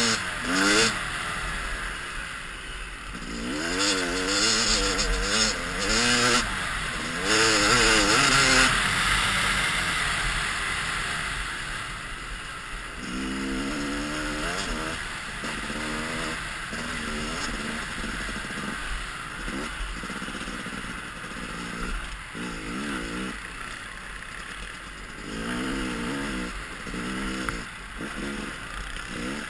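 Yamaha dirt bike engine running under a rider, its revs rising and falling again and again with the throttle and gear changes. A steady rushing wind noise on the helmet-mounted microphone runs under it, loudest about eight seconds in.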